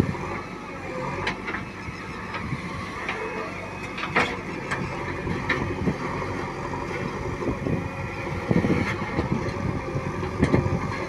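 Diesel earth-moving machinery running steadily: backhoe loader and tractor engines, with scattered sharp knocks and clanks and a couple of louder surges near the end.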